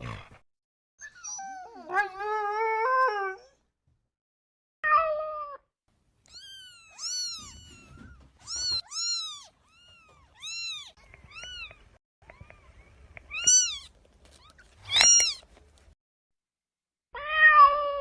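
Cats meowing: a series of separate meows, with a longer wavering one near the start, a run of short, high mews in the middle, and a louder meow near the end.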